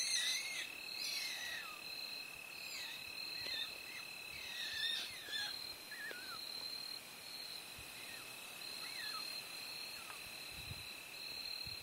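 Fighting skunks giving short, high squeaks that fall in pitch, about a dozen scattered through, over a steady high-pitched insect chorus.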